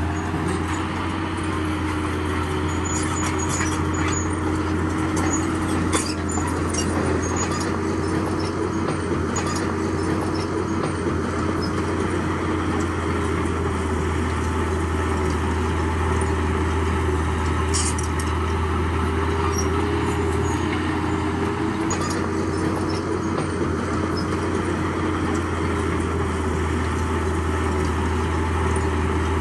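Heavy diesel construction machinery running steadily, a deep continuous engine drone, with a few short sharp clanks of metal or rock now and then.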